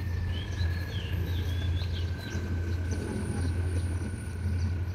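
Steady low rumble of an idling diesel locomotive, with a thin high whine slowly falling in pitch. Birds chirp several times in the first half.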